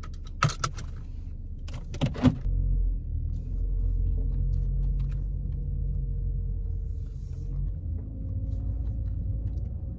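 A few sharp clicks and knocks in the first couple of seconds, then the steady low rumble of a car's engine and tyres heard from inside the cabin as the car pulls away and drives.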